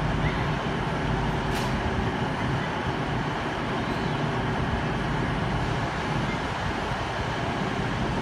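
CrossCountry Voyager diesel-electric multiple unit pulling out of the station with its underfloor diesel engines running under power, a steady low rumble.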